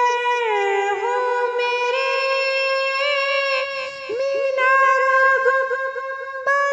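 A solo female voice singing an Urdu naat, holding long drawn-out notes that glide from one pitch to the next, with short ornamental turns as a new line begins about four seconds in.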